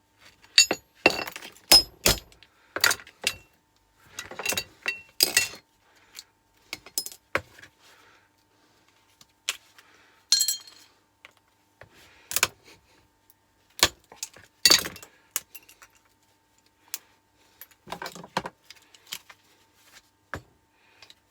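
Irregular clicks, taps and metallic clinks as a small microwave turntable motor is broken open by hand and its fine copper winding pulled out.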